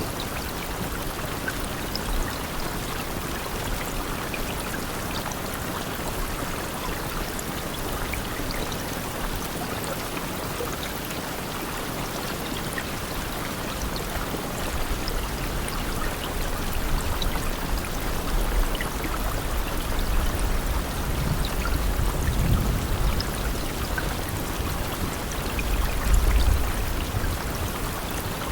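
Steady rain falling, a continuous even hiss of water. In the second half, low rumbling swells rise under it, the strongest near the end.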